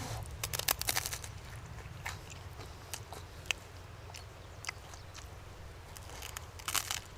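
Biting into and chewing crunchy baguette: a cluster of crisp crunches about half a second in and again near the end, with scattered single crackles between.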